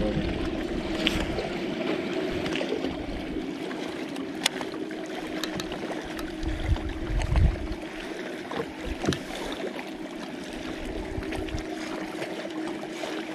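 Water lapping against a small fishing boat's hull, with the steady low hum of an electric trolling motor. A few light clicks from the fishing tackle sound along the way.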